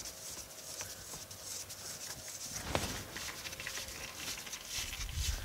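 Hydraulic fluid trickling steadily from the tractor's drain into an oil pan as a fine, pattering hiss, with one sharp clink or knock about three seconds in.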